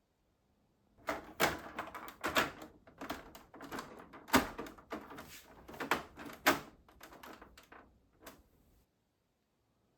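Irregular clicks and knocks of hard plastic parts being handled and snapped together, a few of them louder, starting about a second in and stopping just before the end.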